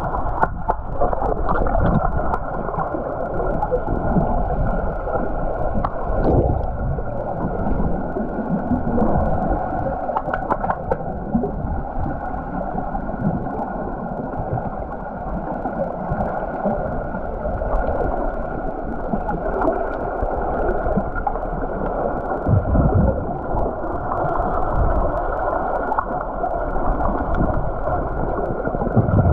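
Muffled underwater noise picked up by a camera submerged in a swimming pool: a steady rushing hiss of moving water, with occasional low thumps from swimmers moving nearby.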